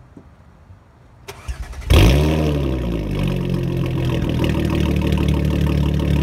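2011 B8 Audi S4's supercharged 3.0-litre V6 starting through an Armytrix exhaust with 2.5-inch cat-delete downpipes. A click and a brief crank come about a second and a half in. The engine then catches with a loud flare of revs that falls back to a steady idle.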